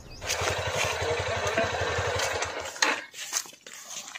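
Motorcycle engine running with an even, rapid pulse, then stopping a little past halfway, followed by a few sharp clicks and knocks.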